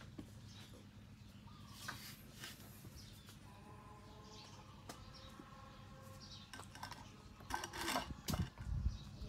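A puppy chewing carrot and potato slices, heard as scattered short crunches and clicks that grow loudest about eight seconds in, over a low steady hum. A faint pitched tone sounds in the background around the middle.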